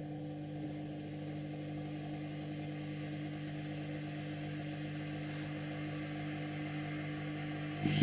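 Brushed washing-machine motor spinning steadily, powered through a TDA1085 speed-controller board, giving an even hum at constant speed.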